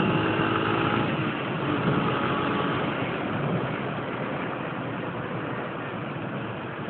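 Yamaha Factor 125 motorcycle's single-cylinder four-stroke engine running on the move, under a dense wind and road rush. The sound gradually gets quieter over the seconds.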